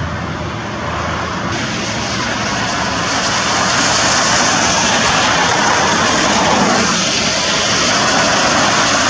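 Steady hiss and drone of traffic on a rain-wet freeway, tyres spraying on wet pavement, growing louder about three seconds in.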